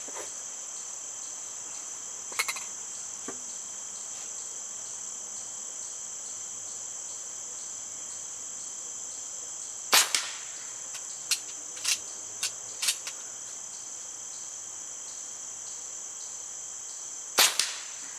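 Diana Bandit .22 PCP air pistol fired twice, about ten seconds in and again near the end, each shot a sharp crack, with a few quieter clicks shortly after the first. Steady insect chirring underneath throughout.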